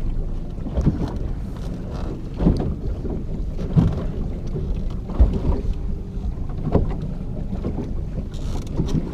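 Small fishing boat under way at trolling speed in choppy water, with wind buffeting the microphone. Dull thumps come about every second or so as the waves slap the hull.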